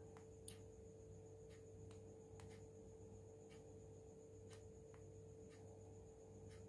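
Near silence: faint room tone with a steady low hum, faint scattered ticks and one small click about half a second in.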